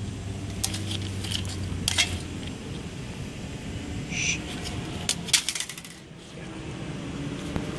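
Scattered light metallic clinks and taps of metal parts and tools being handled, with one short ringing clink about four seconds in and a quick cluster of clicks about five seconds in. A steady low hum runs under the first two seconds and then stops.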